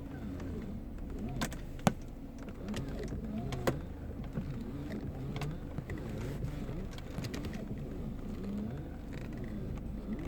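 Mercedes C180 steering squeaking and whining in short repeated rising and falling glides over the car's low running rumble, with two sharp clicks about two seconds and nearly four seconds in.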